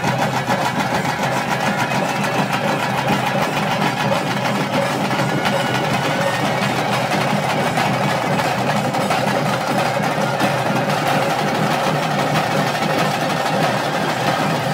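Ritual music of fast, dense drumming that runs on without a break, over a steady sustained drone.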